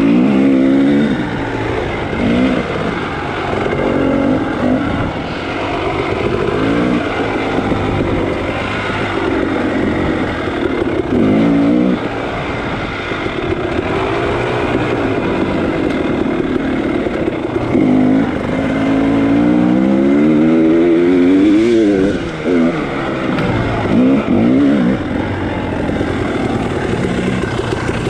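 Dirt bike engine revving up and down again and again as the throttle is opened and shut, with several climbs in pitch, the longest about two-thirds of the way in.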